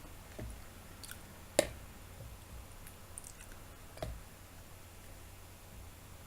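Quiet chewing of a mouthful of button mushrooms, with a sharp click about a second and a half in and a softer one around four seconds.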